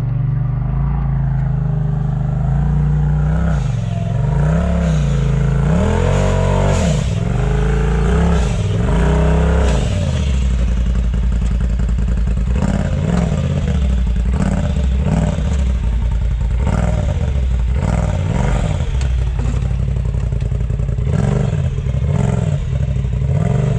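Side-by-side UTV engine revving hard in repeated bursts, its pitch rising and falling again and again as it works to find traction up a rocky climb. From about ten seconds in the throttle is more irregular, with many short knocks and clatter from the machine over the rocks.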